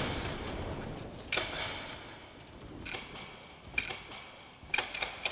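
Switches on a wall-mounted control panel clicking as they are flipped, five sharp clicks at uneven gaps, each with a short ring. Nothing comes on: the power is cut.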